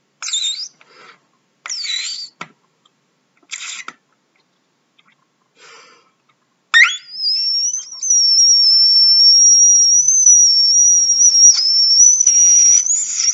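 Trumpet played in its extreme upper register, aiming for the G above triple high C. A few short squeaky attempts come first. About seven seconds in, a note slides up and is held for about six seconds as a thin, whistle-like tone that wavers slightly.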